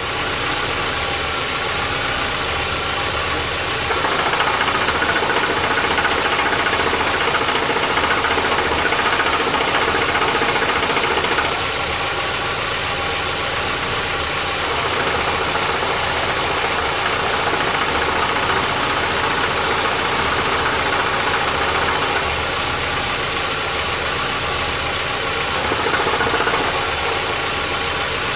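Ford EcoSport's 1.6 8V Zetec Rocam engine idling in neutral with a knocking rattle from the clutch, the "bate bate" that goes away when the clutch pedal is pressed. The noise was traced to abnormal wear on the lining of a newly fitted LuK clutch disc. The sound gets louder suddenly about 4 seconds in, drops back about 11 seconds in, and swells briefly near the end.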